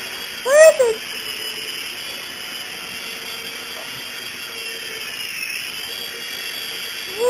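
Micro RC helicopter's small electric motors and rotors whining steadily as it hovers, with the pitch dipping and coming back up about five seconds in. A brief exclamation from a voice cuts in about half a second in.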